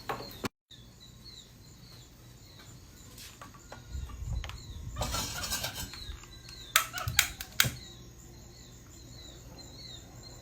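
A short, high, falling chirp repeating about twice a second in the background, from an unseen bird or other small creature. A rustle of handling comes about halfway, followed by three sharp clicks.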